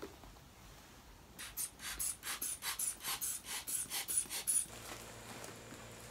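A manual blood-pressure cuff being pumped up with its rubber bulb: a quick run of short airy puffs, about four a second, for some three seconds. This is the cuff inflating around the arm until it feels tight.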